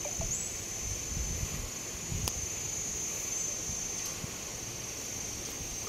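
Insects chirring in a steady high-pitched drone, over an uneven low rumble, with one sharp click a little over two seconds in.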